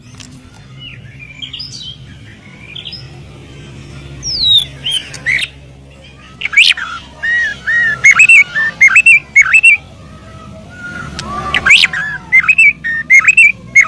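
White-rumped shama (murai batu) singing loud, varied whistled phrases with sharp up- and down-swept notes. About halfway through, and again near the end, the song breaks into fast runs of repeated looping notes.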